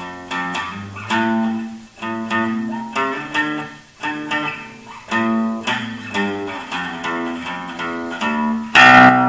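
Acoustic bass guitar played with the fingers: a run of plucked low notes, several at a time, about one a second, ending with the loudest note struck about nine seconds in.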